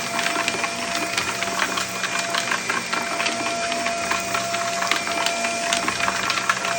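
Vacuum cleaner running steadily while it sucks up small hard debris, which crackles and clicks rapidly and irregularly through the nozzle and hose.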